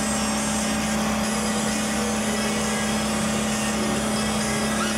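A motor boat's engine droning steadily at constant speed while under way, over a steady hiss.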